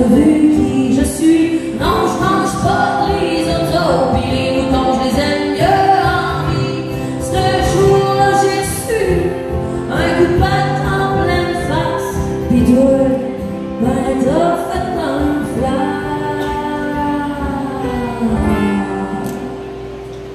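Live song: a woman singing, accompanied by two acoustic guitars. Near the end the voice stops and the guitars play on more quietly.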